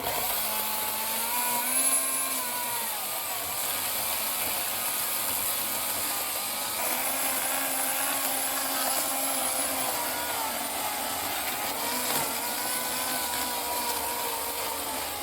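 Oregon CS1500 15-amp corded electric chainsaw running under load as it cuts into a palm trunk, its motor pitch wavering up and down as the chain bites.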